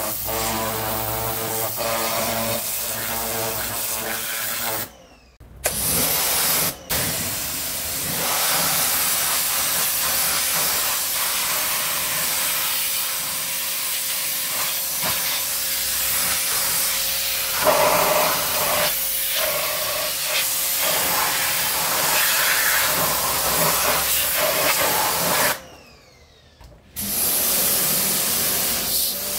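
Parkside PHD 170 D2 pressure washer running, its water jet hissing against a car's alloy wheel and tyre over the steady hum of its motor. The spray cuts out for a moment about five seconds in, and again for about a second near the end.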